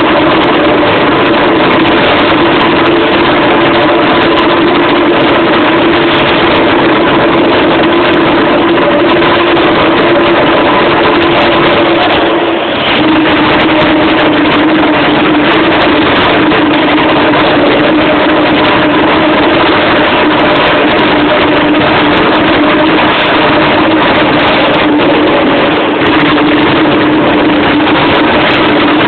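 Tornado airless paint-spraying rig running while a barrel is painted: a steady motor hum over a broad spray hiss. The hum dips briefly about 12 seconds in and then settles slightly lower in pitch.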